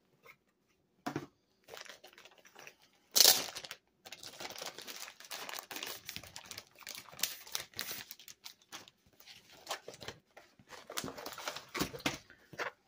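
Plastic-film-covered diamond painting canvas and its packaging crinkling and crackling as they are handled and unrolled, with one louder crackle about three seconds in.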